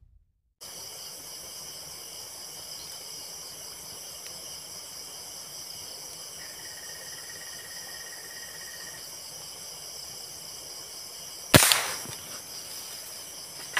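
Crickets and other night insects trilling steadily, with a thin steady tone for a couple of seconds midway. Late on, a single sharp shot from the Tauros A2K dual-propellant airgun, followed by a short ringing tail.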